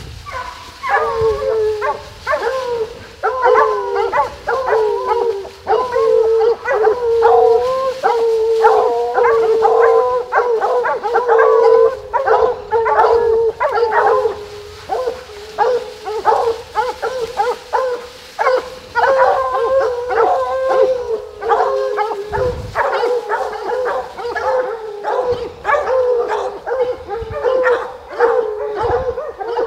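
Hunting hounds baying on a black bear's trail, a steady run of overlapping barks and drawn-out bawls from several dogs: the pack is running the bear close behind it.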